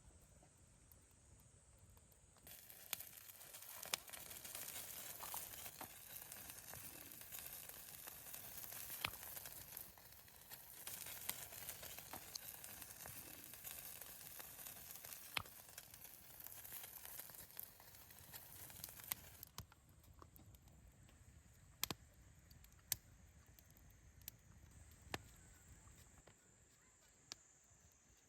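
Wood campfire burning with scattered sharp crackles and pops over a soft hiss; the hiss drops away about two-thirds of the way through, leaving sparse pops.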